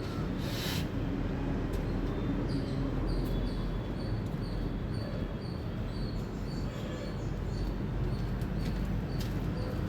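Indian palm squirrel chirping: a steady series of short, high, slightly falling chirps, about two a second, over a steady low rumble.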